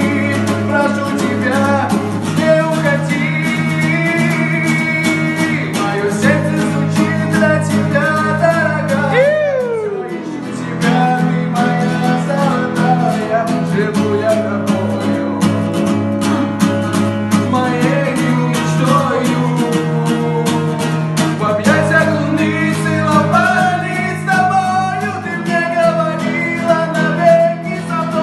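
Singing accompanied by a strummed acoustic guitar; about nine seconds in, a sung note slides down in pitch.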